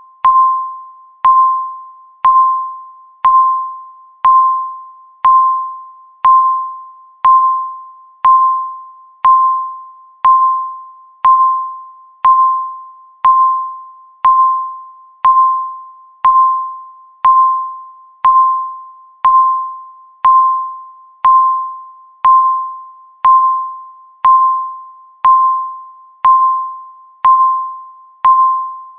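Countdown timer beeping once a second: a short chime-like electronic beep, struck sharply and fading quickly, repeating at an even pace, one beep for each second left.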